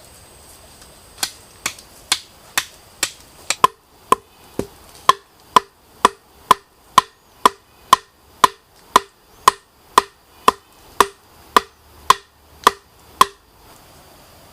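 A tool striking wood in steady, evenly spaced blows, about two a second. From about four seconds in the blows ring with a clear pitch, and they stop about a second before the end.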